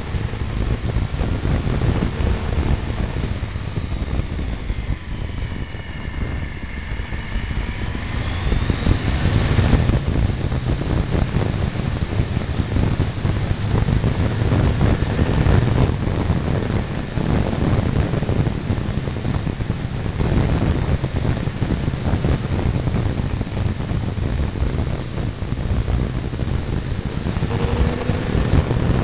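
Triumph Tiger 955i's three-cylinder engine pulling the motorcycle along on the move under heavy wind rush at a mirror-mounted camera. The engine note dips and then climbs between about four and nine seconds in, and climbs again near the end.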